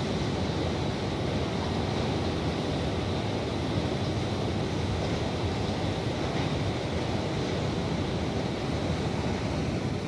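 Steady, even roar of ambient noise in a large underground metro station concourse, with no distinct events.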